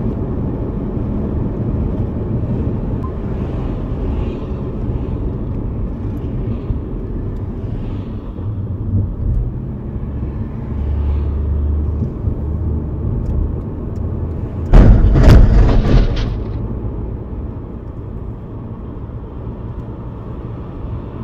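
Steady road and engine rumble heard from inside a moving car. About 15 seconds in, a loud burst of rumbling and clattering lasts about a second and a half.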